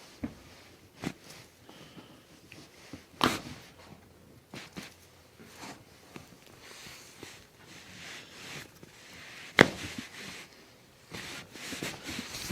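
Ankle and toe joints cracking under a chiropractor's manual adjustment: a few short, sharp pops, one about three seconds in and the loudest after about nine and a half seconds, with fainter clicks and soft rustling of hands and skin between them.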